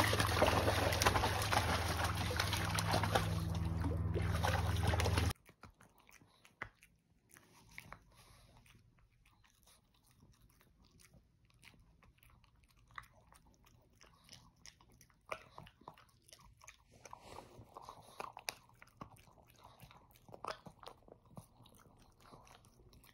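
A pug splashing in a plastic kiddie pool over a steady low hum, cut off suddenly about five seconds in. Then a pug gnawing a chew stick: faint, irregular chewing and crunching clicks.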